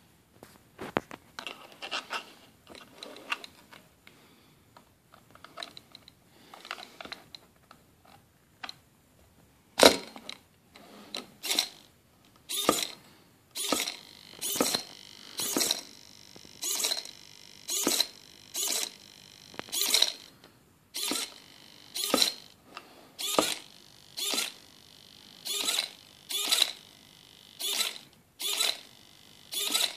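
Micro servo of an Arduino-driven pedometer tester swinging its arm back and forth. Each swing is a short whirring buzz, about one a second at slightly uneven intervals, and they begin after a sharp click about ten seconds in. Before that there are only faint, irregular clicks.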